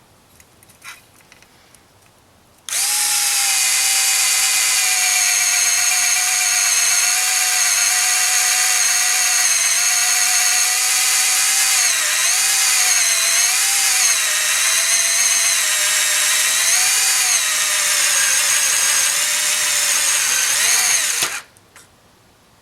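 Hitachi DB3DL 3.6 V cordless screwdriver running on high speed for about eighteen seconds, driving into galvanized sheet metal. Its motor whine dips in pitch several times as it bogs down against the resistance, showing a lack of torque, then stops.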